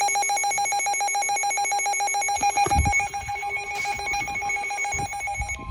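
Emergency Alert System attention tone: a steady, harsh electronic alert tone that cuts off shortly before the end, with a few low thumps from about halfway.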